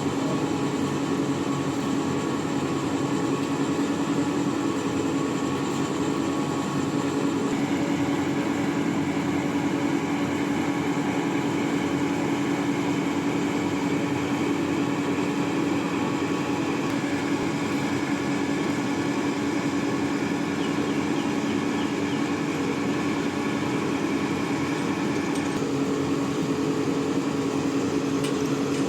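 Heavy machinery running steadily, an engine drone with a held whine that steps to a new pitch a few times, typical of a crane's engine and hydraulics under work.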